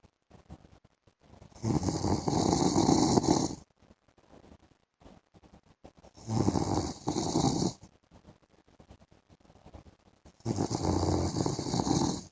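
A man snoring in his sleep: three long snores about four seconds apart, each lasting one and a half to two seconds, with near quiet between them.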